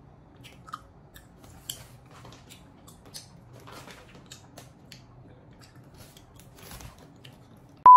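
Faint, scattered crinkles and clicks of a plastic candy bag being handled while licorice gummy candies are chewed. Just before the end a loud, steady high beep cuts in.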